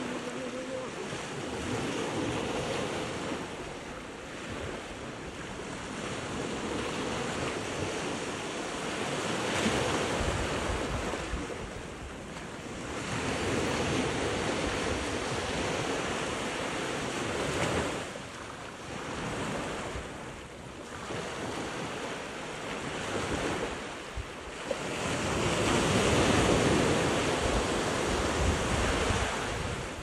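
Small Atlantic waves breaking and washing up the beach, swelling and easing every few seconds, loudest near the end. Wind buffets the microphone with a low rumble.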